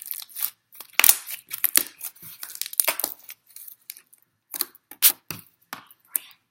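Homemade slime being squished and stretched by hand close to the microphone, giving an irregular run of sharp crackling pops and clicks.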